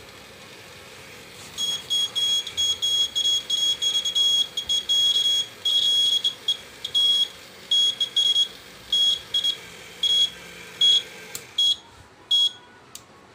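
Piezo buzzer of a homemade earthquake detector beeping in irregular short and longer bursts as the base is shaken. The bursts come as the swinging pendulum contact makes and breaks, signalling the simulated tremor.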